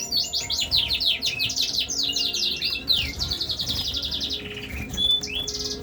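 Several caged finches and canaries singing at once: fast trills and chirps overlapping without a break.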